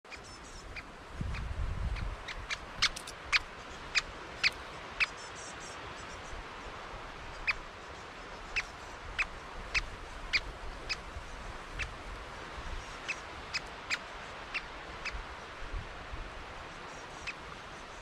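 Great spotted woodpeckers calling: short, sharp, high notes, irregularly spaced, at times about two a second, loudest in a run a few seconds in. A brief low rumble comes near the start.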